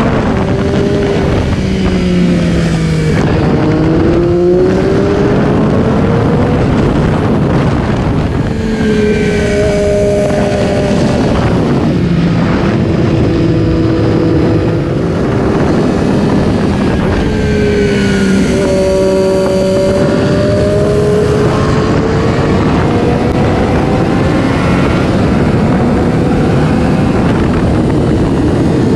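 Triumph Daytona 675's three-cylinder engine running through a Two Brothers aftermarket exhaust, its pitch rising and falling several times under a steady rush of noise.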